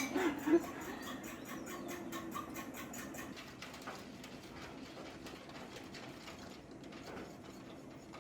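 Faint bird calls and chirping.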